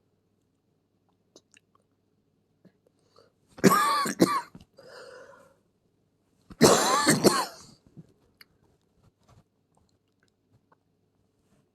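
A person coughing and clearing their throat in two loud bouts about three seconds apart, each lasting about a second, with a quieter breathy sound between them.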